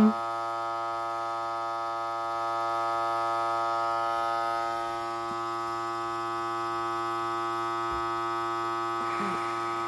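Vacuum sealer's pump running with a steady electric hum, slightly louder for a few seconds early in the middle. It does not cut off: it keeps pumping because the bag is not reaching full vacuum, and the owner says it will just keep on going forever.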